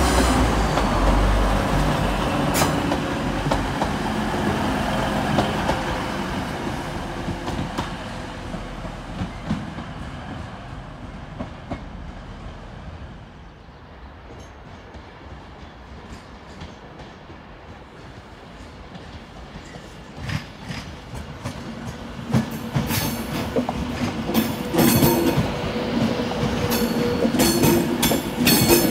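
A Class 185 diesel multiple unit moving off, its engine hum fading over the first several seconds. Later a Class 390 Pendolino electric train comes in over the pointwork, its wheels clacking over rail joints and squealing, louder in the last several seconds.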